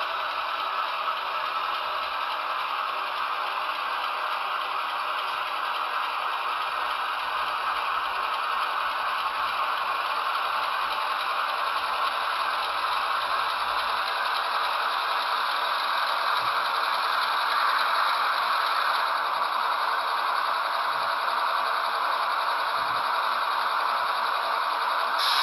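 HO-scale Athearn Genesis ES44AC model locomotive running along the track: a steady rattling whir from its wheels and drive, getting a little louder as it comes closer.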